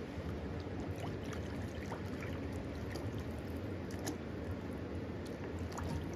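Water pouring from a plastic bottle into a small metal pan, splashing and trickling steadily.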